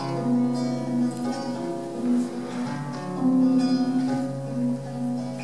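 Acoustic guitar playing: plucked notes and chords ringing over a low bass note that is held throughout.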